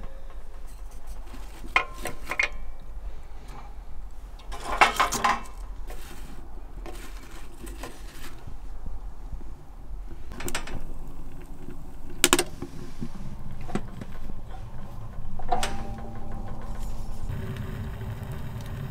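Scattered knocks and metallic clinks as split wood is loaded into a Cubic Mini wood stove's firebox and its steel door is handled, with a freshly lit kindling fire burning inside.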